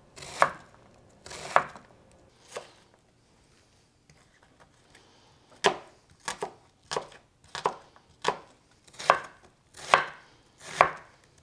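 Chef's knife dicing an onion on a wooden cutting board: sharp knocks of the blade on the board, a few at first, a pause of about three seconds, then a steady run of chops about one or two a second from about halfway.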